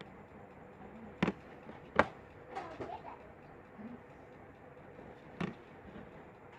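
Sharp clicks and taps of a small screwdriver and screws on a smartphone's frame while its screws are being fitted: three separate clicks, the loudest about two seconds in.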